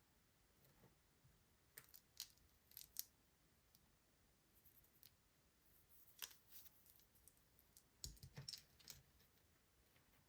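Near silence broken by a few faint, scattered clicks and crinkles of toy packaging being handled, a little busier near the end.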